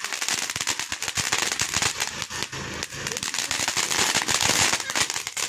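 Ground fountain firework hissing as it sprays sparks, with a dense, rapid crackle of small pops.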